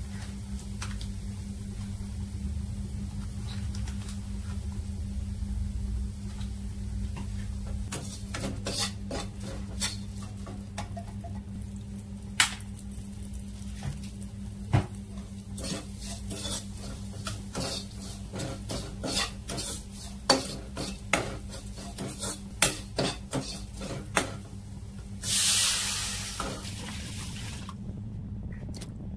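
Steel spoon stirring and scraping onions and spices frying in oil in a nonstick pan, with many sharp clicks of spoon on pan over a low steady hum. About 25 s in, a loud hiss of about a second and a half as liquid goes into the hot pan.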